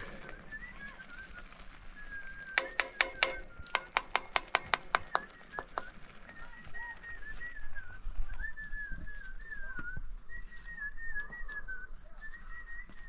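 A high, wavering whistle that slides up and down in short phrases. In the first half it is joined by two quick bursts of sharp knocks, about eight a second.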